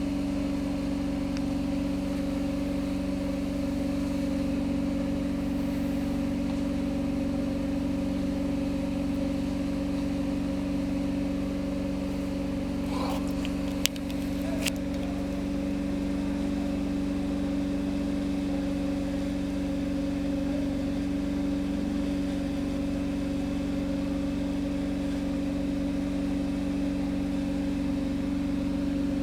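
Steady, unchanging engine-like hum with a low drone, broken by a sharp click about halfway through and a smaller one just after.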